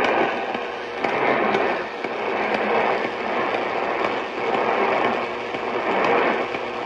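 Loud hissing radio static, swelling and fading irregularly, with no voice or tones.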